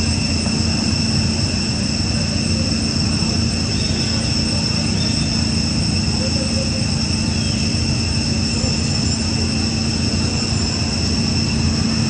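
A steady mechanical drone: a constant low hum with fixed high whines over a rumble, unchanging throughout.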